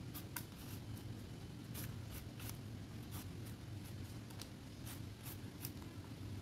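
Y-shaped vegetable peeler scraping the skin off a raw green mango in a quick, irregular series of short scratchy strokes, about two or three a second.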